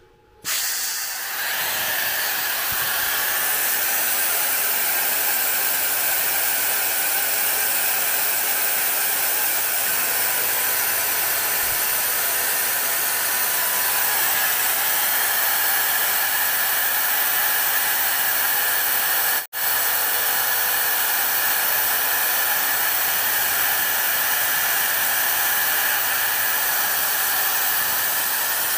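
Air assist on a Neje dual-diode laser module blowing a steady hiss of air while the laser cuts. It switches on abruptly right at the start and drops out for an instant about two-thirds of the way through.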